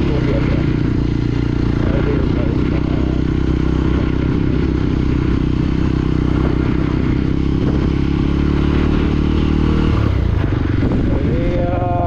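Motorcycle engine running steadily while under way, a continuous low drone with a broad hiss over it; the engine note shifts about ten seconds in.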